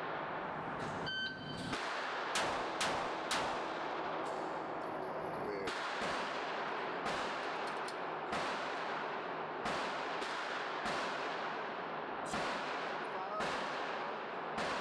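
A shot-timer beep, then about 1.3 seconds later a quick string of 9mm pistol shots from a Glock fitted with a Radian Ramjet compensator, echoing in an indoor range. Single gunshots then keep sounding about every second from other lanes, over a steady hiss of range ventilation.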